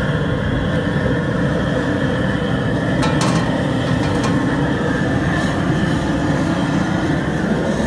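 Steady roar of the propane burner heating a crawfish boil pot, with a few sharp metallic clinks about three seconds in as the aluminium lid is set on the pot.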